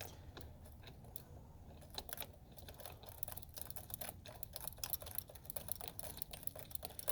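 Faint, irregular small clicks and taps of parts being handled while a steering wheel is fitted back on, thickening from about two seconds in.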